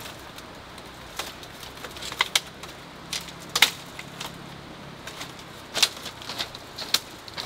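Irregular light clicks and knocks of someone moving about on a slatted bamboo floor and picking up hand tools, about ten in all, the sharpest a little past halfway and near the end, over a steady outdoor hiss.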